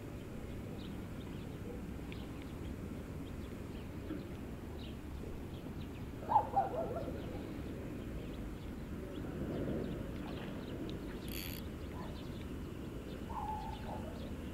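Steady low outdoor background noise with a few bird calls: a short pitched call about six seconds in and another brief one near the end.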